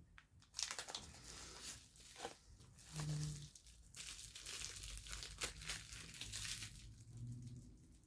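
Packaging crinkling, rustling and tearing in uneven bursts with small clicks as items are unwrapped and handled.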